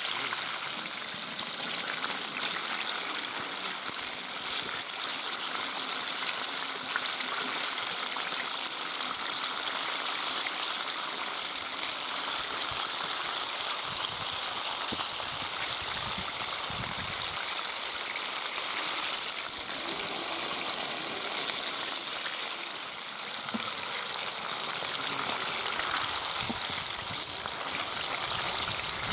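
Breaded chicken drumsticks deep-frying in hot oil, a steady, dense sizzle.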